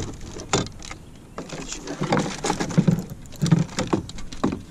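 Irregular knocks, taps and clatter in a small boat as a landing net and fishing gear are handled during a fight with a hooked fish.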